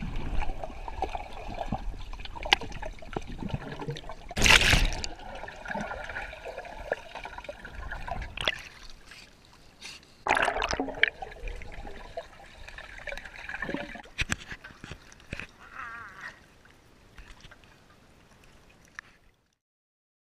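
Swimming-pool water splashing, sloshing and gurgling right at a GoPro as it goes under and back above the surface, with louder splashes about four and a half seconds in and again around ten seconds. It fades and cuts off about a second before the end.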